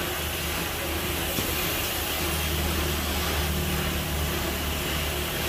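Compressed-air paint spray gun hissing steadily as paint is sprayed, over a steady low machine hum.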